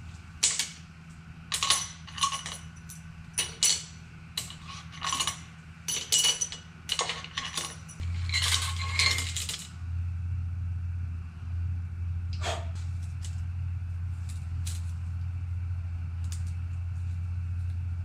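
Sharp metallic clinks and taps of tools, bolts and metal engine parts as the cylinder head of a Suzuki SV650 V-twin engine is unbolted and lifted off. There are about a dozen clinks in the first half and only a few after. A steady low hum comes in about eight seconds in.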